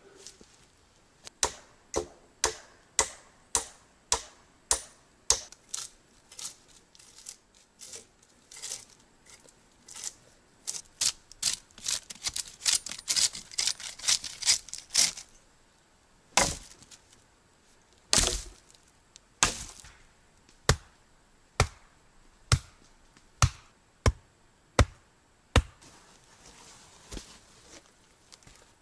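Axe striking wood in a series of sharp chops: blows about twice a second, then a quick flurry of lighter strokes, then single blows about a second apart.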